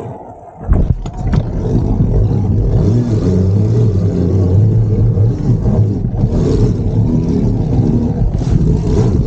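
An e-bike riding over rough ground: a steady, wavering motor hum with wind and tyre noise. A few sharp knocks come about a second in.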